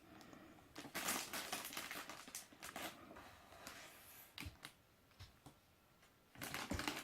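LEGO pieces clicking and rattling with rustling as someone rummages through parts bags. A dense run of small clicks about a second in, then scattered clicks and a short flurry near the end.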